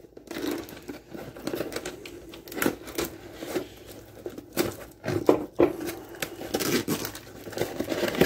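A cardboard shipping box being opened by hand: a small knife blade slitting the packing tape along its edge, then the flap being torn back, with irregular scraping, tearing and crinkling of cardboard and plastic packaging.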